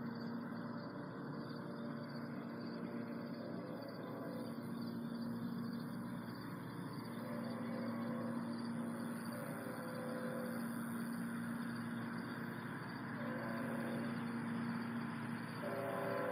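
Distant approaching freight train: a diesel locomotive's air horn sounds the grade-crossing pattern of long, long, short, long through the second half, over a steady low hum.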